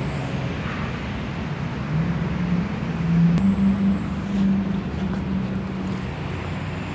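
Road traffic passing close by: a steady rumble of vehicles, with one engine's low hum rising in pitch about two seconds in and holding until near the end.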